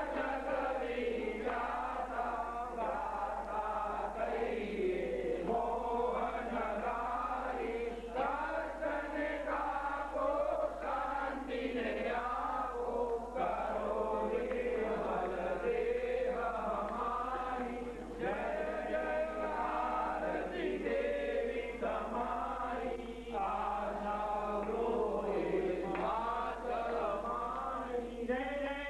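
A group of voices chanting a devotional verse together in a continuous, steady sung recitation.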